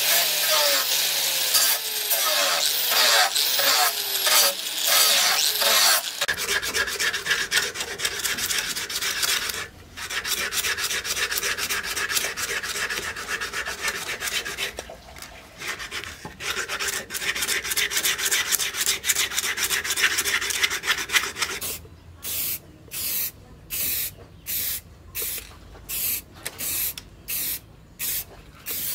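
An angle grinder with a sanding disc runs against the steel blade, its motor pitch sliding down, and stops about six seconds in. The blade is then rubbed back and forth by hand with rapid scratchy strokes. In the last seven seconds an aerosol spray can hisses in short, sharply cut bursts, about one a second.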